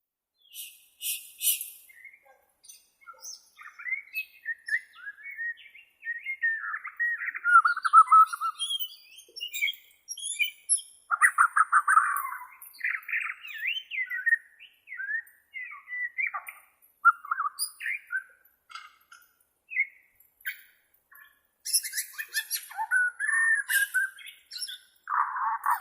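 White-rumped shama (Bornean murai batu) singing a varied song. It mixes clear whistled notes and glides with fast rattling trills and a few very high thin notes, in phrases broken by short pauses.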